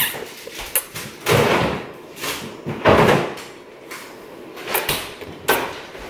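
Kitchen doors and cupboards knocking and clicking as they open and shut, with a few sharp knocks and two louder rushing swells about a second and three seconds in.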